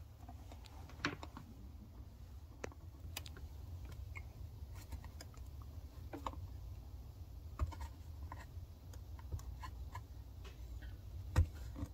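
Scattered small clicks and scrapes of a screwdriver tip and fingers working at the plastic fuse covers on an e-bike battery case, with one sharper click near the end, over a low steady hum.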